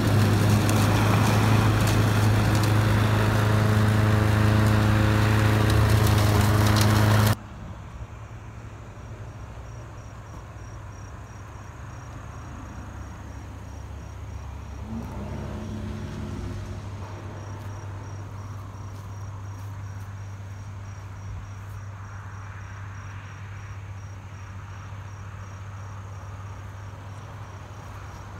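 A loud, steady engine hum that cuts off abruptly about seven seconds in. Crickets chirp after that, with a fine rapid pulsing, over a quiet outdoor background.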